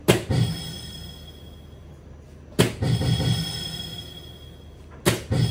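Three soft-tip darts hitting an electronic dartboard about two and a half seconds apart. Each sharp hit is followed by a short electronic sound from the board that rings on and fades.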